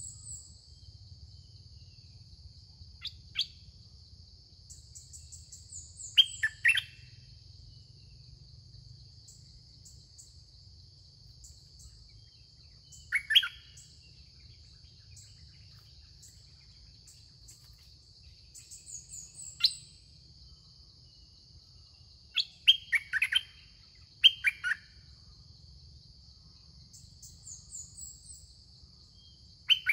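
Songbirds singing short, loud phrases every few seconds, with a quick run of several near the end and thin high chirps between them, over a steady insect drone.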